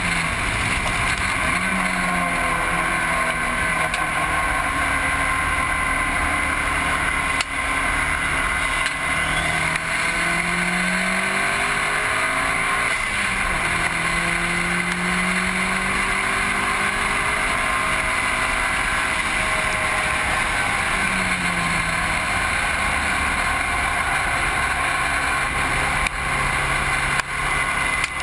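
Heavy wind and road roar on a low, car-mounted microphone at track speed, with a Mitsubishi Lancer Evolution VIII's turbocharged four-cylinder engine underneath, its pitch rising and falling several times as it accelerates, lifts and shifts through the corners.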